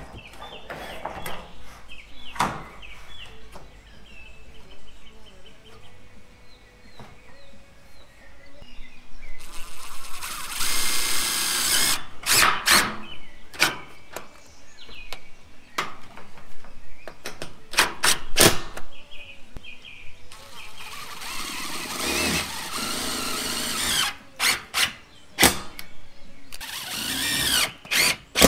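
A power drill running in bursts, with many sharp knocks and clatter between runs, during work on metal roofing.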